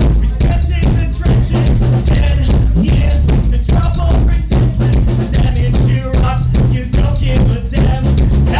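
Live rock band playing loudly: electric bass, electric guitar and a drum kit, with a heavy, steady bass line under driving drums.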